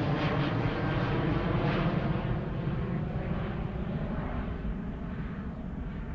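Twin jet engines of a Boeing 737 airliner passing overhead and moving away, a loud rumble with a faint steady hum that fades and loses its high end over the few seconds.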